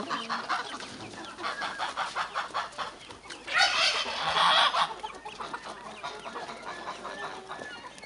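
A flock of young turkeys calling with many short clucks and chirps. A little over three seconds in, there is a louder burst of rapid calling lasting about a second.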